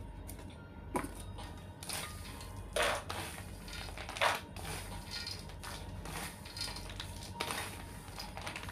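Thin clear plastic crinkling and rustling in irregular bursts, with a few sharper crackles, as cooked peanuts are packed into plastic tubes.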